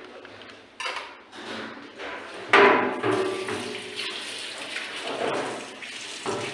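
Tap water running into a stainless steel sink while a knife and a plastic cutting board are rinsed under it. There is a sudden knock about a second in and a loud ringing clank against the metal sink about two and a half seconds in.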